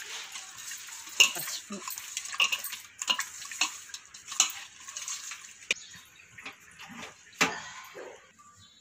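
Raw fish pieces being rubbed and turned by hand in wet turmeric spice paste in a stainless steel bowl: wet squelching and sliding, with the fish knocking against the steel sides about once a second. It dies down near the end.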